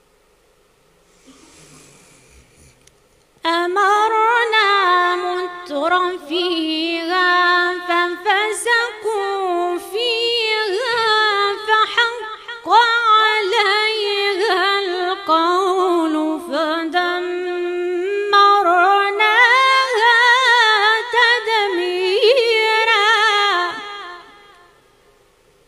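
A woman reciting the Quran in a long, drawn-out melodic phrase in a Moroccan recitation style, with held high notes and ornamented turns, heard through a microphone. The voice comes in about three seconds in and fades out near the end.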